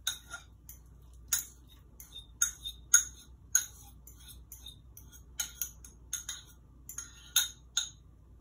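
Metal fork tapping and scraping against a ceramic bowl in a quick, irregular run of clinks as mashed banana is scraped out into another bowl.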